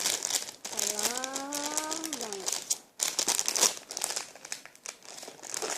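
Plastic crinkling and rustling as squishies and their wrapping are handled, with a brief pause about three seconds in. About a second in, a drawn-out hummed tone rises slightly and falls away.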